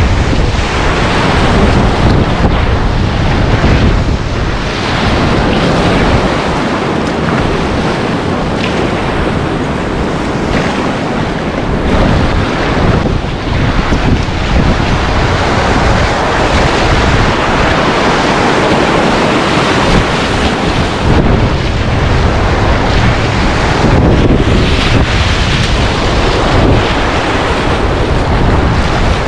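Steady rush of whitewater river rapids, mixed with heavy wind buffeting on the microphone.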